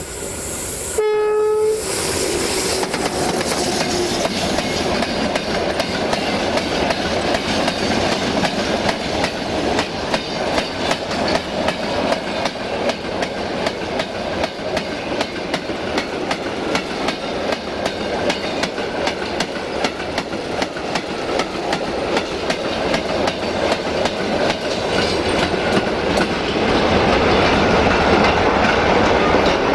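A Romanian 060-DA (LDE2100) diesel-electric locomotive gives one short horn blast about a second in. Then its long train of freight wagons rolls past, wheels clacking steadily over the rail joints.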